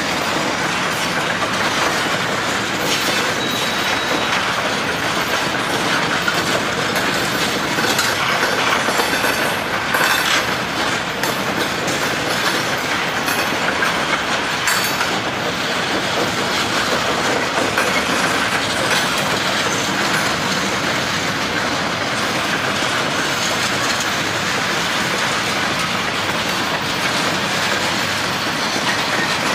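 Freight train of open-top gravel hopper cars rolling past at steady speed: steel wheels running on the rail with a continuous rumble and the clickety-clack of wheels over rail joints. A short high wheel squeal sounds about three seconds in.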